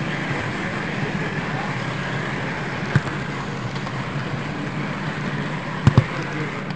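Model railway train running on the layout: a steady rolling hum of motor and wheels on track, with a sharp click about halfway through and two more close together near the end.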